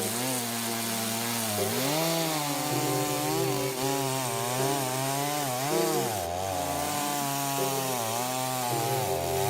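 Chainsaw running while cutting wood, its engine pitch rising and falling repeatedly as it goes under load.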